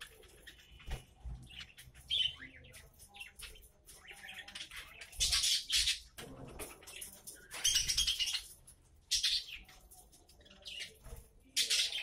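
A flock of budgerigars chirping and chattering, in irregular loud bursts, with wings fluttering.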